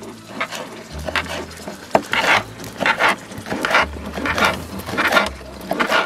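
Kitchen knife slicing green onion on a wooden cutting board: a steady run of short, crisp cuts with the blade tapping the board, about one every two-thirds of a second.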